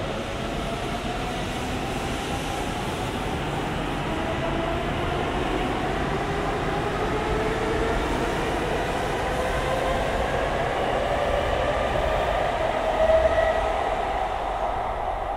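N700S Shinkansen train accelerating, its traction motor and inverter whine rising steadily in pitch, over the rumble of the train rolling on the rails. The sound fades as the train pulls away near the end.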